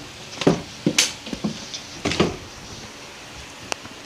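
Small ceiling fan running on its high setting, a steady airy whir, with several light knocks and clicks over it.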